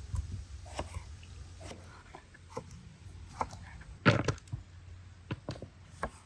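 Scattered sharp clicks and knocks at irregular intervals, the loudest about four seconds in, with a low rumble during the first second or two.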